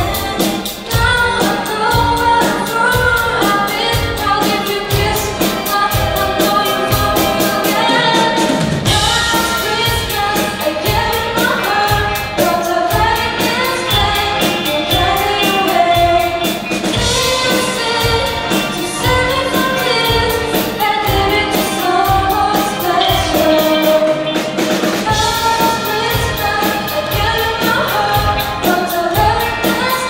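Live band playing a pop song: female voices singing over a steady drum beat with electric guitars, bass and keyboards.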